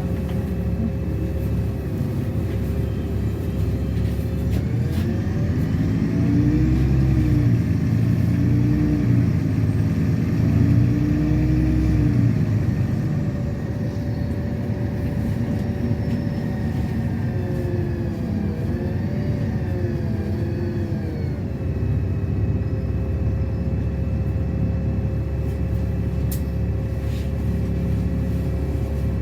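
LiAZ-6213 articulated city bus under way, heard on board: a steady low drone with a constant whine, and the engine and drivetrain pitch sweeping up and down twice as the bus accelerates, about five and eighteen seconds in.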